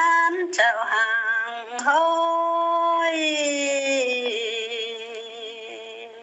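A single voice singing a slow, wavering melody that holds one long note for about two seconds, then trails off and fades near the end.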